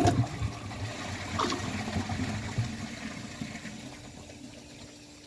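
American Standard Champion toilet flushing with the handle released: a rush of water as the bowl empties, fading over about three seconds into the quieter sound of the refill. The owner finds the flush too short.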